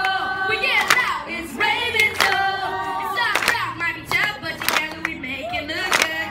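A singer's amplified voice singing held notes through a stage sound system, with hands clapping along close by about once a second.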